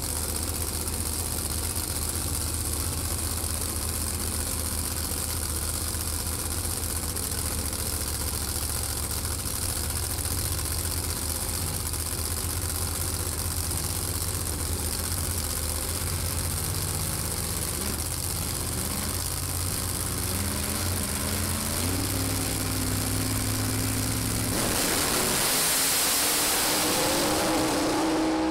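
Two drag racing cars' engines idling and revving at the start line, then launching about 25 seconds in with a sudden swell of loud engine noise.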